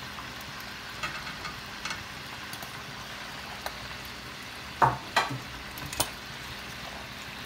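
Suadero beef and nopal cactus paddles sizzling as they fry in a stainless steel pan, with metal tongs clacking against the pan and an upturned metal bowl a few times, the loudest clacks about five to six seconds in.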